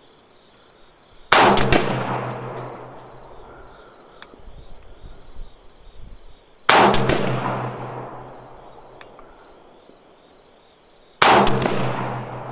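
Three rifle shots from an AR-15-style .223 rifle firing MagTech 77-grain ammunition, about five seconds apart, each sharp crack followed by a long fading echo.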